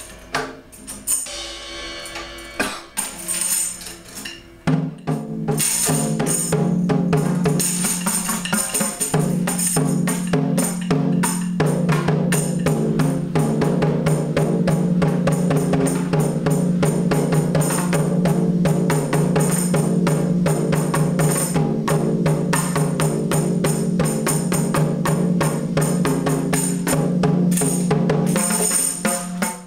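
Drumming: scattered strokes for the first few seconds, then from about five seconds in a fast, continuous roll over a sustained low drum tone, easing off near the end.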